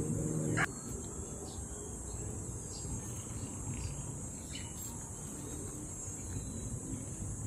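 Steady high-pitched drone of an insect chorus. A low steady hum cuts off abruptly just under a second in, and a few faint short chirps come through in the middle.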